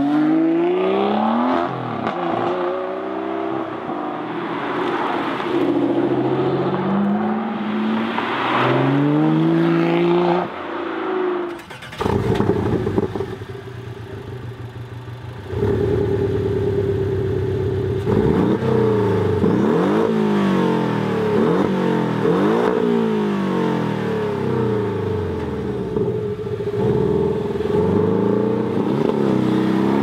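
Aston Martin V12 Vantage S Roadster's V12 accelerating away, its revs climbing again and again through the gears. After a cut about twelve seconds in, a Porsche 718 Boxster S's turbocharged flat-four is heard at a standstill: a steady quieter run, then held at higher revs, then revved up and dropped back about once a second.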